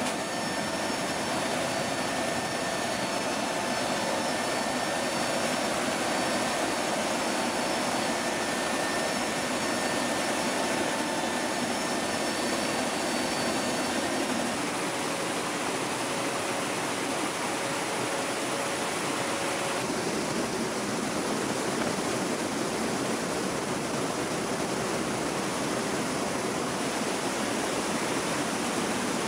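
Steady rush of wind and engine noise in the cargo hold of an HC-130 Hercules in flight with its rear ramp open, from the slipstream and its four turboprop engines. A few faint steady engine tones run through the noise.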